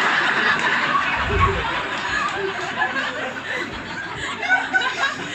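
Audience laughing in a comedy club, loudest at the start and dying down.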